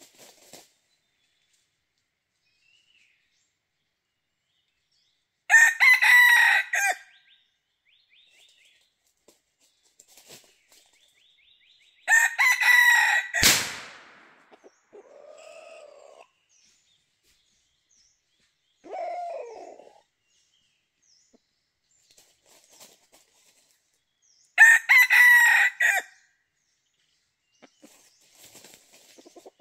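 Red junglefowl roosters crowing: three loud crows of about a second and a half each, about six seconds in, about twelve seconds in and near the end. Between them come two shorter, lower calls.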